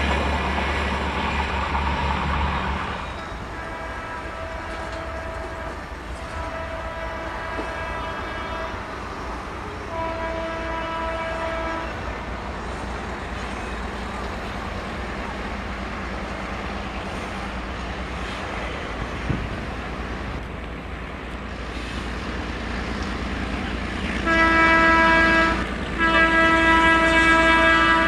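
A passing train's rolling noise fades away over the first few seconds. Then an Indian Railways diesel locomotive's multi-tone horn sounds three long blasts from a distance, over a low steady rumble. Near the end come two much louder long blasts as the locomotive draws closer.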